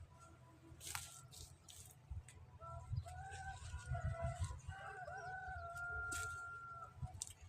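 A rooster crowing once, a call of about four seconds that ends on a long held note, with a few brief clicks and a low rumble underneath.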